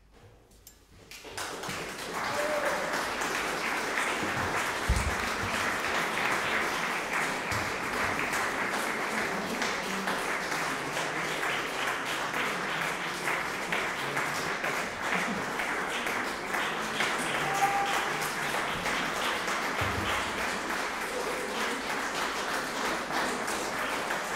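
Audience applauding. The clapping starts about a second in and keeps on steadily.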